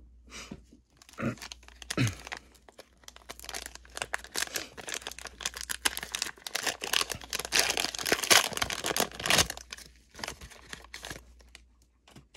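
Panini Prizm football card value pack being torn open, its wrapper crackling and crinkling in a dense run of rips that peaks near the end, after a few soft handling knocks.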